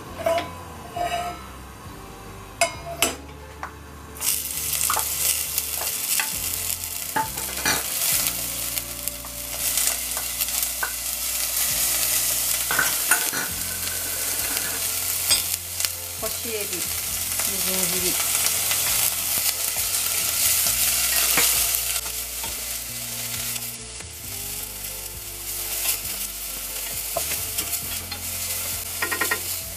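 Minced long green onion and onion hit hot sesame oil in a stainless steel saucepan about four seconds in, after a few clinks of the pan, and sizzle steadily while a wooden spatula stirs and scrapes them.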